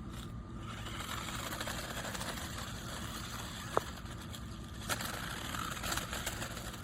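A small electric motor running steadily, with a sharp click about four seconds in.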